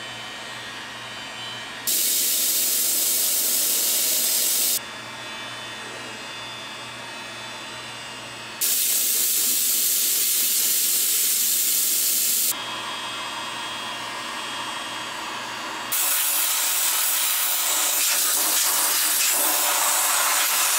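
An electric heat gun runs with a steady fan whir while it heats the plastic bumper. Three times it gives way to long, loud hissing blasts of compressed air from an air-hose blow gun, cooling the heated plastic. The hiss comes about 2 s in, again about 9 s in, and from about 16 s in onward.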